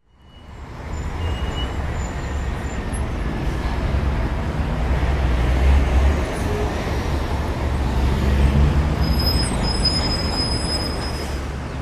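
Vehicle running with a steady low rumble and road noise, fading in over the first second and swelling a little twice.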